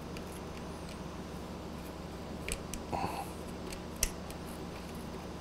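A few light clicks from a motorcycle clutch cable and its threaded adjuster being handled and turned at the lever perch, over a steady low hum.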